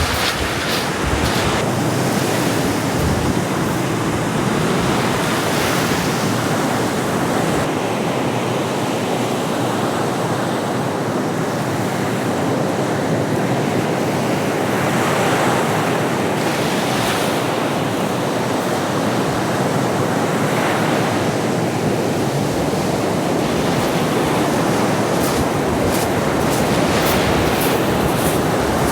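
Stormy sea surf: a continuous, steady wash of waves with wind blowing over it, and a few brief crackles near the end.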